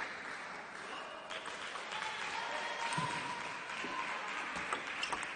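Applause and cheering in a sports hall dying down, then the sharp clicks of a plastic table tennis ball striking paddles and table as a point begins near the end.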